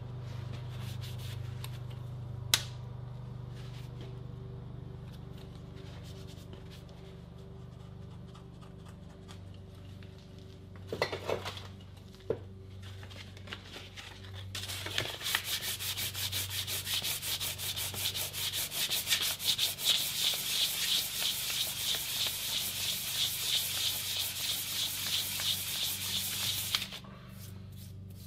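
Sandpaper rubbed by hand on an aluminium part, rapid back-and-forth strokes from about halfway in until shortly before the end, smoothing away excess glue. Before the sanding there is only a low steady hum and a few sharp knocks.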